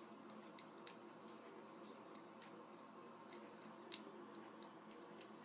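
A cat drinking at a bathtub faucet spout: faint, irregular wet ticks of lapping and drips, about two a second, over a steady faint hiss, with one louder tick about four seconds in.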